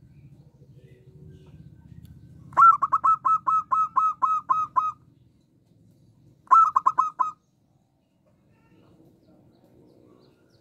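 Zebra dove (perkutut) singing: a run of about ten quick staccato cooing notes, roughly five a second, then after a short pause a second, shorter run of about five notes.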